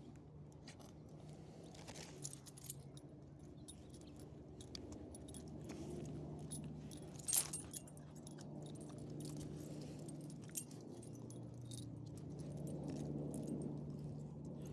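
Small metal dog tags and collar hardware jingling in light, irregular chinks as small dogs walk on leashes, with one sharper clink about halfway through. A low steady hum runs underneath.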